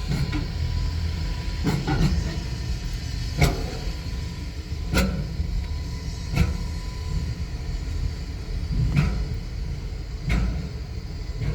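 Car driving slowly with a steady low rumble, and a short knock about every one and a half seconds.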